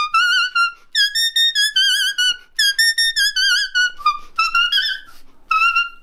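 A folk tune played on a leaf held against the lips: shrill, whistle-like notes with a wavering vibrato, in short phrases with brief breaks. The tune stops shortly before the end.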